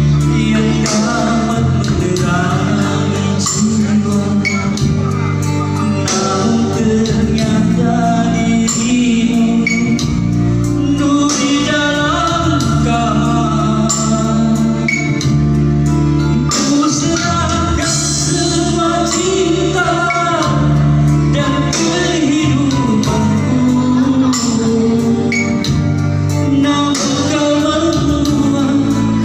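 Loud amplified band music with a singer's voice, playing continuously.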